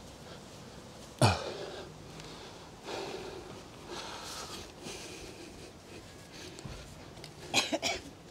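A cloth rubbing polish into a narrowboat's painted steel side. About a second in there is one loud sudden sound that drops in pitch, and near the end a quick cluster of sharp knocks.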